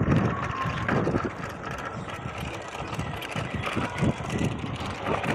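Riding noise from a bicycle moving along a street: wind buffeting the microphone with a low, uneven rumble.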